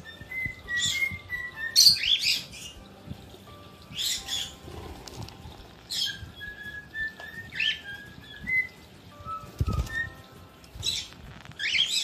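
Small pet parrots (lovebirds, with a budgie and a cockatiel among them) giving shrill, sharp chirps every second or two, with wings flapping, over a thin wavering whistle. A brief dull thump comes near the end.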